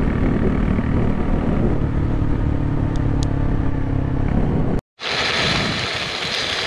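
Motorcycle engine running steadily at cruising speed, with wind rushing over the microphone. About five seconds in it cuts off abruptly to a steady hiss from a lidded frying pan cooking on a camp stove.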